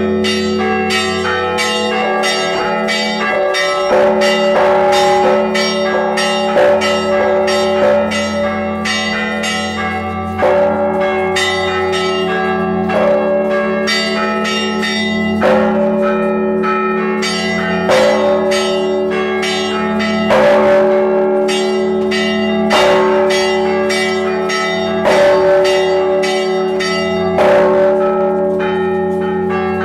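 Orthodox church bells rung in a peal: rapid strikes of small bells over the sustained hum of larger bells, with a heavier bell struck about every two and a half seconds.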